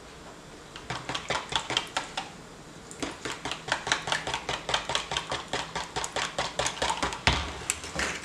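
Wire whisk beating eggs and butter in a plastic measuring jug: rapid clicking strokes of the wires against the jug, about five a second, with a short pause about two seconds in. A dull knock near the end.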